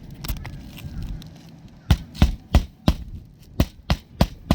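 Hammer driving roofing nails into an asphalt shingle on a roof: eight sharp blows in two runs of four, about three a second, after some brief rustling.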